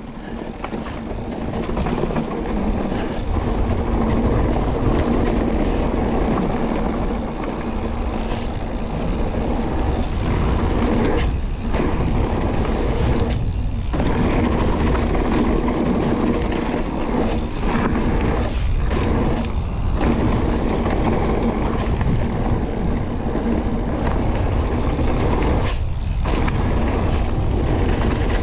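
Mountain bike riding a gravel trail: wind buffeting the camera microphone and the tyres rumbling and rattling over the gravel. The noise builds over the first few seconds as the bike picks up speed, with a few short lulls.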